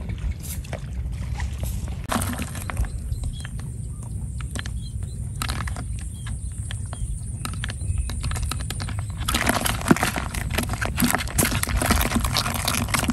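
Live fish wriggling and flapping in a plastic bucket: a scatter of wet slaps and clicks that becomes a busy, continuous patter about nine seconds in, over a low steady rumble.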